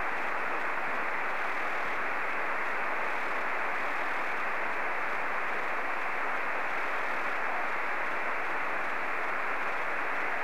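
Steady receiver static from an FT-897 transceiver in single-sideband mode, tuned to the FO-29 satellite's 435.8–435.9 MHz downlink, with no clear signal coming through. The hiss is thin, like a narrow radio channel, with nothing above the upper voice range.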